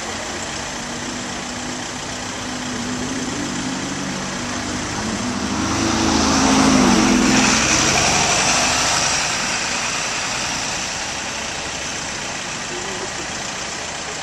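A double-decker bus drives past close by: its engine note and tyre noise swell to a peak about seven seconds in and then fade, over steady street traffic.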